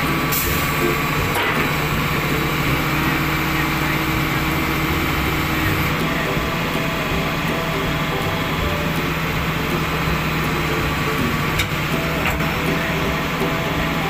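Heavy diesel engine idling steadily, an even low hum with no change in speed.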